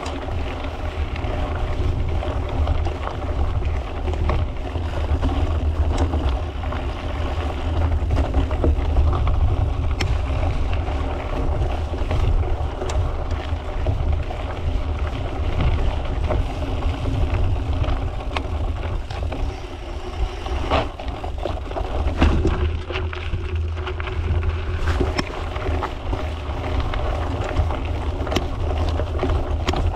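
Wind rumbling on the microphone while riding a mountain bike, over a steady droning hum, with a few sharp rattles and clicks.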